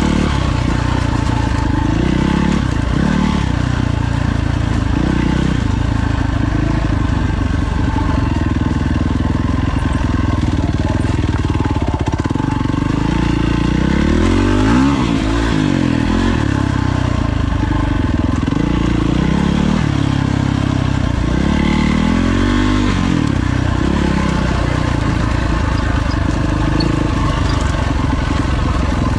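Four-stroke single-cylinder dirt bike engine running under load, its pitch rising and falling over and over as the throttle is opened and closed.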